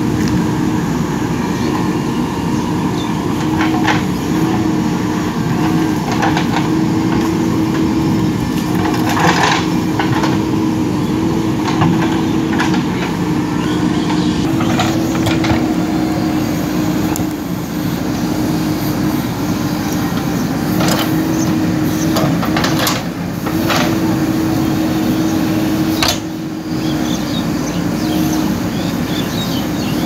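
JCB 3DX backhoe loader's diesel engine running steadily under hydraulic load while the rear bucket digs a trench, with occasional sharp knocks and scrapes of the bucket in the soil.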